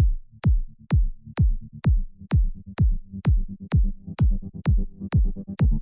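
Electronic dance music: a steady kick drum about twice a second, with synth notes building up underneath and growing fuller toward the end.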